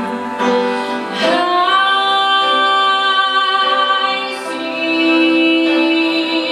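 A woman singing long held notes in a live song, accompanied by a bowed cello. About a second in, the voice slides up into a sustained note, and a lower note is held near the end.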